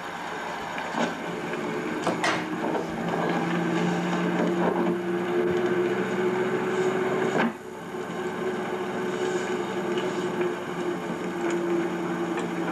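Engine of a 1948 Humber Pullman MK1 hearse running steadily with a low two-note drone. The drone is cut by a click about seven and a half seconds in, then carries on.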